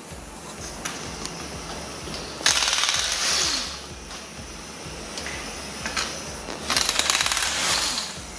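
Pneumatic impact wrench hammering on wheel lug nuts to loosen them, in two bursts of a little over a second each, a few seconds apart.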